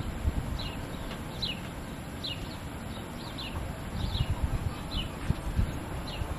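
A bird repeating a short, falling chirp every half second or so, over wind rumbling on the microphone. Footsteps on dirt come in near the end.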